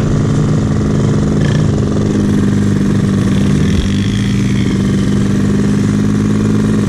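Small 50cc engines of a kids' quad and dirt bike running at a steady, even pitch.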